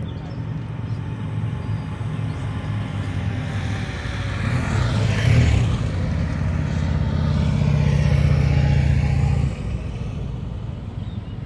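Police motorcycles riding past on a multi-lane road: the engine sound builds and is loudest as one passes close about five seconds in, rising then falling. A steady engine note then holds until it drops away suddenly about two seconds before the end.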